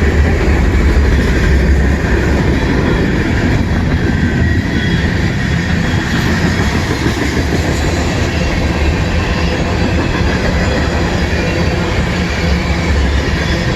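CN freight train rolling past, a steady loud rumble and rattle of wheels on rail.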